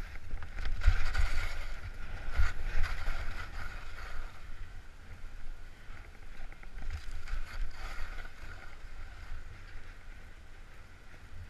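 Skis hissing and scraping over snow on a downhill run, with wind buffeting the microphone as a low rumble. It surges a few times, louder in the first few seconds, and eases off toward the end.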